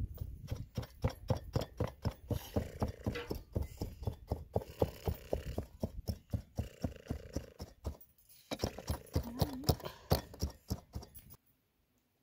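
Fast, even knocking at about four strikes a second: a hand-held weaving comb beating the weft down into the wool warp of a ground loom. The strikes pause briefly about eight seconds in, resume, then stop abruptly shortly before the end.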